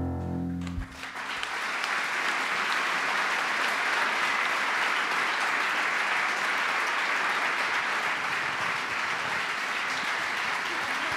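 The last held chord of the song's accompaniment, with electric guitar, stops within the first second, and a concert-hall audience then applauds steadily.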